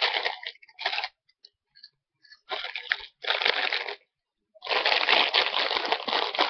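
Plastic wrapper of a mini Warheads sour candy crinkling and tearing as it is opened, in several spells of rustling with short gaps, the longest near the end.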